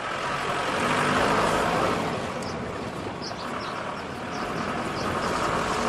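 SUV driving past and away on a gravel road: engine running and tyres rolling, swelling about a second in and easing off.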